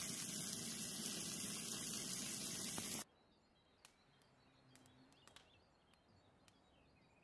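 A steady hiss that cuts off abruptly about three seconds in. After it the sound is very quiet, with a few faint clicks and faint bird chirps.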